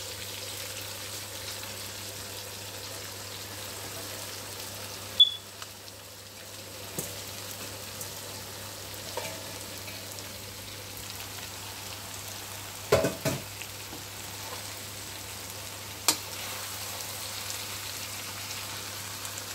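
Onions and sauerkraut frying in oil in a nonstick wok: a steady sizzle as the cabbage is tipped in and stirred. A few sharp clinks and knocks of the spoon and bowl against the pan cut through it, the loudest about five seconds in and a short cluster around thirteen seconds.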